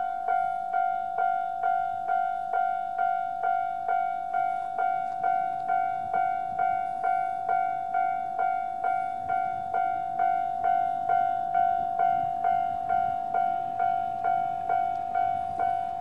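Japanese railway level crossing's electronic warning bell ringing steadily, about two dings a second, each a bright single-pitched ding with overtones, signalling that a train is approaching and the crossing is closed.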